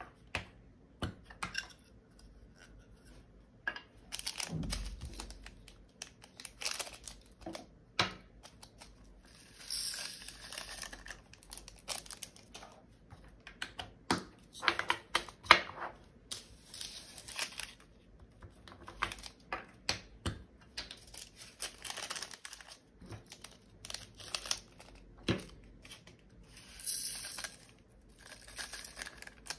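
Small plastic bags of diamond-painting drills crinkling and being torn open, with scattered clicks and several second-long rattling, hissy bursts as the resin drills are handled and poured into storage containers.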